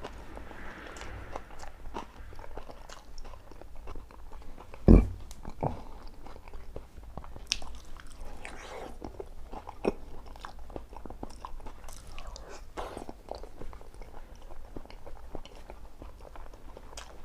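A person chewing and crunching food close to the microphone, with many small irregular clicks. About five seconds in comes a single dull thump, the loudest sound, with a softer one just after.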